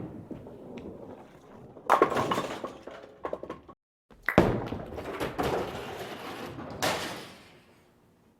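Two bowling takes in a row: each has a ball landing on the lane and rolling, then crashing into the pins with a loud clatter that dies away, the first strike about two seconds in and the second near the end.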